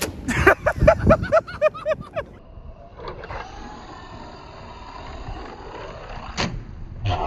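Electric motor of a Traxxas RC truck whining as the throttle is blipped in quick short bursts, then held for a longer run with the pitch rising and falling. There is a sharp knock near the end.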